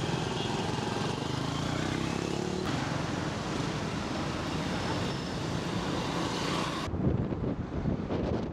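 Street traffic: motorcycle taxis and cars running past, a steady mix of engine hum and tyre noise. About seven seconds in it changes to a duller rumble with wind buffeting the microphone.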